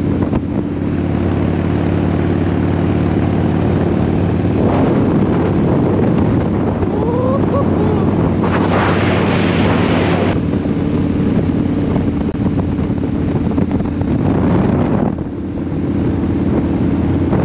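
Motorcycle engine running at a steady speed while riding, with wind rushing over the microphone; the wind noise grows louder for a couple of seconds about halfway through.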